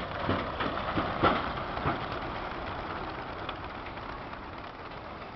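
A large flock of racing pigeons taking off from a transport truck's crates: a dense clatter of many wingbeats, loudest in the first two seconds, then fading as the birds fly away.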